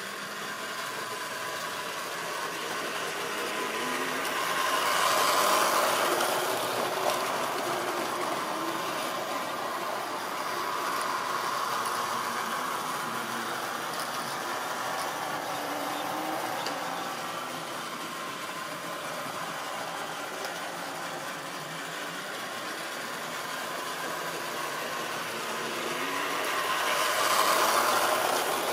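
Tri-ang model train running along the layout track: a steady mechanical running noise that grows louder twice, about five seconds in and again near the end, as the train passes close by.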